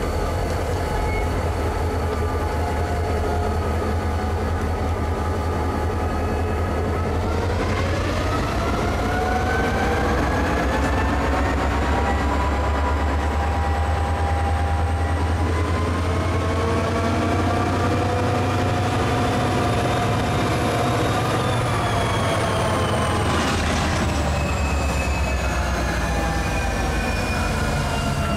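EMD GP38-2 and GP40-2 diesel locomotives throttling up to switch the yard: a deep engine drone, with the engine note rising about a quarter of the way in. A high whine climbs slowly, then falls away as the units pass.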